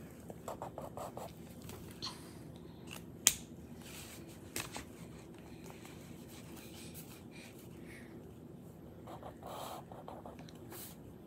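Marker tip scratching across sketchbook paper in short quick strokes, filling in a dark area, with a sharp click about three seconds in. A low steady hum runs underneath.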